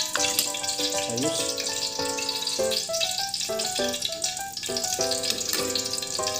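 Background music with a clear melody, over a steady sizzle of food cooking.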